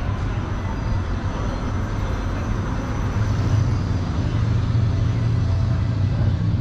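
Steady low rumble of city street traffic, getting a little louder about three seconds in.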